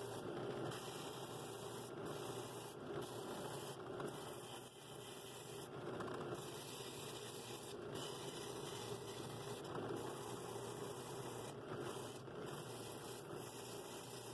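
Drill press spinning a sanding drum, running steadily as the wooden bowl's rim is held against it and sanded, with small rises and dips in level as the pressure changes.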